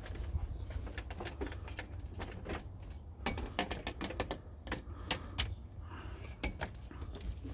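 Irregular light clicks and taps of a window-screen panel's frame knocking against a storm door frame as it is manoeuvred into place, over a low rumble.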